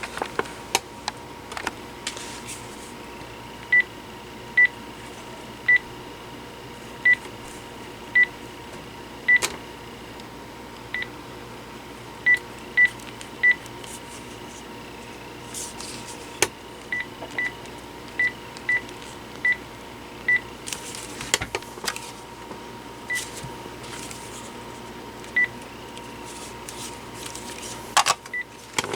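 Panasonic KX-TG6841 cordless phone handset keypad beeping as buttons are pressed: about twenty short, high beeps at uneven intervals, in clusters with pauses, mixed with light button clicks, over a faint steady tone.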